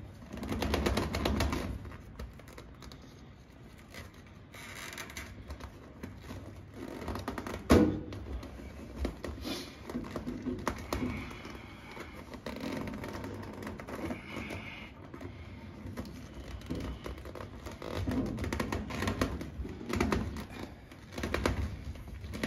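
Wire-reinforced flexible exhaust hose being stretched and forced onto a laser cutter's exhaust port by hand: crinkling, scraping and rubbing in uneven bursts, with one sharp knock about eight seconds in.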